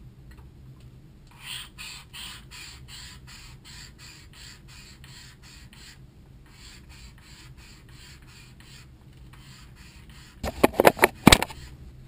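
Hand scraping strokes on a small gearbox part, about four a second, with a short pause midway. Near the end comes a quick run of loud, sharp knocks.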